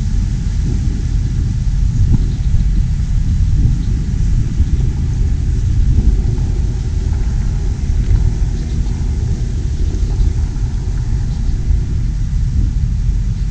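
Steady low rumble: the distant engine of a New Holland T4.110 tractor floating across a pond, mixed with wind on the microphone.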